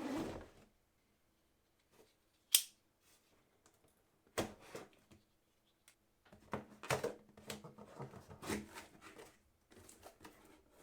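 A cardboard product box being opened and handled: a sharp click, a knock, then a run of short rustling and scraping noises from flaps and packaging.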